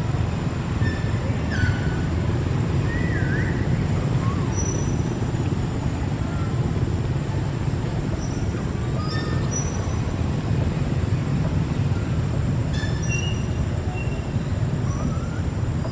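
Steady low rumbling background noise with scattered brief high chirps and short whistled glides over it.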